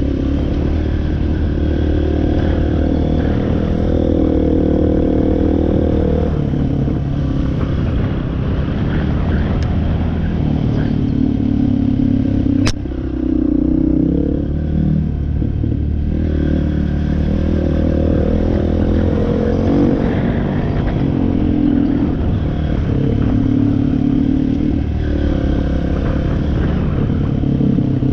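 Off-road vehicle engine running on a trail ride, its pitch rising and falling with the throttle. One sharp click about halfway through.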